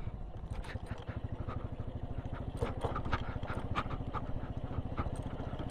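Motorcycle engine running steadily, heard through a microphone inside the rider's helmet, with scattered short knocks and rattles as the bike rides over a bumpy, potholed dirt road.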